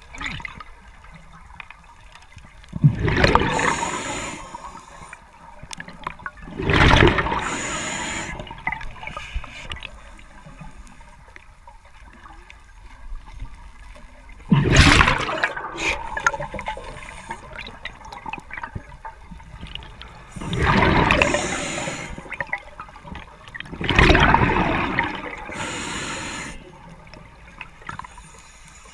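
A scuba diver breathing through a regulator underwater: five loud, bubbling exhalations, each a second or two long and several seconds apart, with a faint steady background between them.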